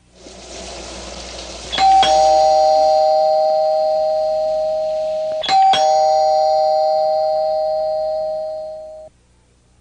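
Doorbell chime ringing twice, about three and a half seconds apart. Each ring is a two-note ding-dong that is held and slowly fades; the second one cuts off suddenly.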